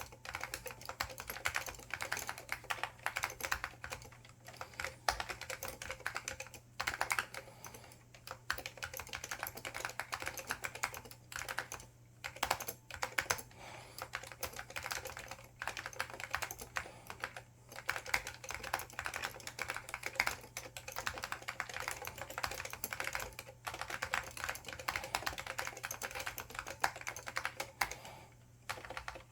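IBM 5556-003 keyboard with Alps SKCL Green switches and ABS doubleshot keycaps being typed on fast and continuously, a dense run of key clicks broken by a few short pauses.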